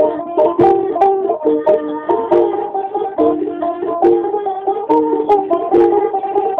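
Batak gondang hasapi music: a sarune reed pipe and plucked hasapi lutes playing a fast melody of quickly changing notes with sharp plucked attacks.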